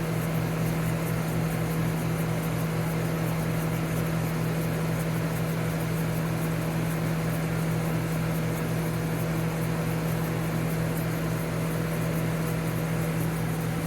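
Montgomery Ward dehumidifier running steadily: the compressor's hum with the fan blowing air across the coils, which are frosting over.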